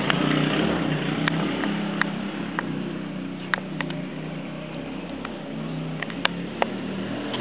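200cc ATV engine running under throttle as the quad spins its wheels in the dirt, its drone swelling and easing, with scattered sharp clicks through it.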